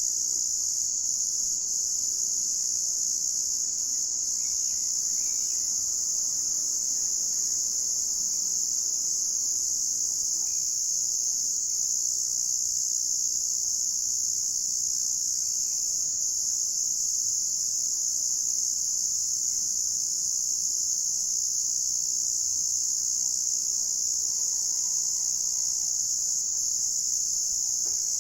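Evening chorus of crickets: a dense, steady, high-pitched trilling that never lets up. A few faint bird chirps come through now and then.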